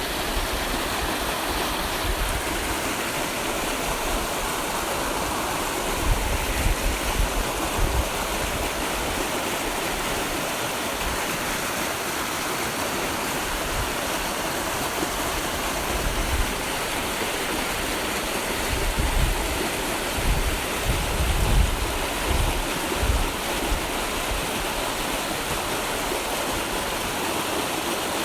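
Steady rushing of flowing water, with brief low rumbles a few times.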